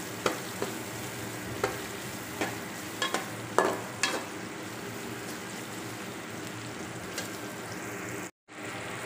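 Onion, tomato and green chilli masala frying in oil in a metal pot, with a steady sizzle. A slotted metal spatula scrapes and knocks against the pot several times in the first four seconds. The sound drops out for a moment near the end.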